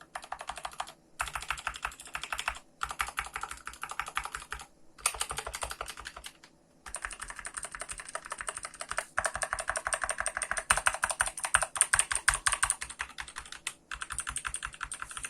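Fast typing on a GK61 60% mechanical keyboard with lubed Gateron Blue clicky switches: rapid runs of key clicks broken by short pauses, the longest about six seconds in.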